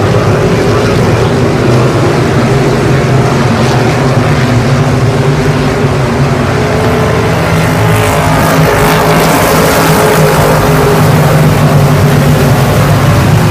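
A field of hobby stock dirt-track race cars running at speed, many engines droning together without a break; the sound turns brighter and harsher about eight seconds in.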